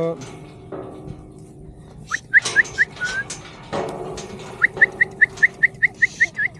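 A bird calling in quick runs of short rising chirps, about five a second, starting about two seconds in and again a little after halfway, over a few knocks and rattles.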